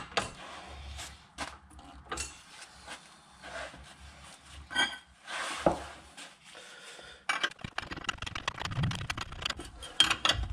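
Metal knocks and clinks of a trolley jack being set under a van's front lower suspension arm to stop the ball-joint nut spinning. Near the end comes a quick run of metal clicks as a spanner works the new ball-joint nut.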